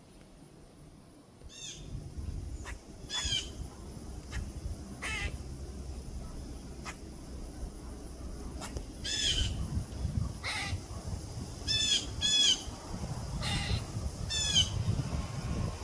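A bird calling repeatedly outdoors: short, harsh, crow-like calls, about eight of them, some in quick pairs. A steady low rumble sits underneath from about two seconds in.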